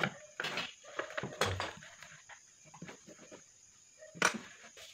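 Handling noise from tin-can burner parts on a wooden table: a few short scrapes and knocks, the loudest about four seconds in.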